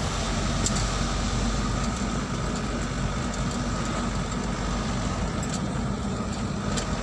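Steady engine and road noise of a motor vehicle driving along, heard from inside the cabin, with a few faint clicks or rattles.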